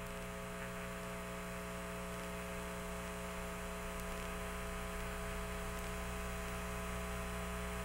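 Steady electrical hum with a hiss of static on an open air-to-ground radio channel between transmissions.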